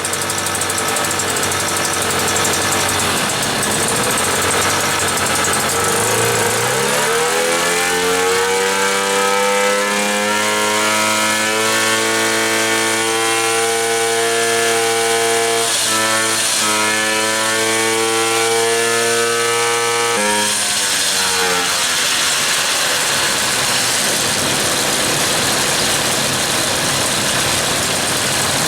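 Motobecane moped's single-cylinder two-stroke engine running after its first start on a rebuilt carburettor. Its revs climb over a couple of seconds, hold at a steady high pitch, then drop back about two-thirds of the way through and it runs on at lower revs.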